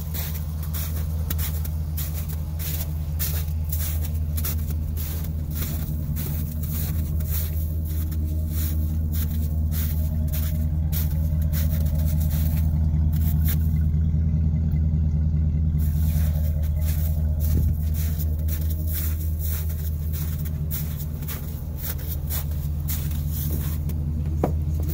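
Chevrolet Silverado 2500HD pickup's V8 engine idling steadily, with footsteps crunching in snow.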